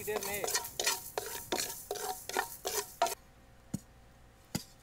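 Wooden spatula stirring fenugreek seeds as they dry-roast in an iron pan: a run of scraping strokes, about two to three a second, which stops about three seconds in. Two sharp knocks follow.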